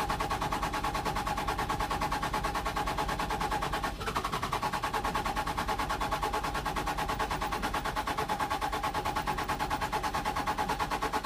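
Starter motor cranking a safari four-by-four's engine in a fast, even chug that never catches, with a brief break about four seconds in; it cuts off sharply at the end. A failed attempt to start the engine.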